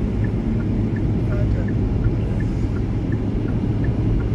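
Steady road and engine rumble inside a car's cabin, with the hazard-light flasher ticking in an even tick-tock, a click about every third of a second.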